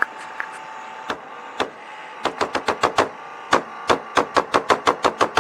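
A rapid, irregular series of sharp clicks or taps, a few scattered at first and then about five a second from about two seconds in.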